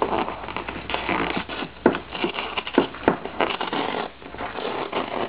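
A FedEx Express cardboard shipping box being torn open by hand: cardboard ripping and crackling, with several sharp cracks in the middle.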